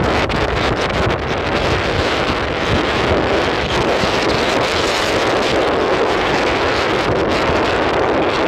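Heavy wind blasting across the microphone, a loud, steady rushing noise.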